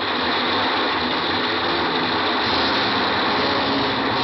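Radio-drama sound effect of a subway train running: a steady clattering roar with no pauses.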